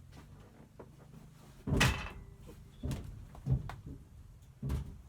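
Irregular knocks and thumps of hands-on work, about five in all, the loudest a sharp bang about two seconds in.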